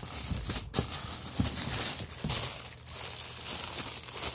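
Packaging crinkling and rustling irregularly as items are handled and pulled out of a box.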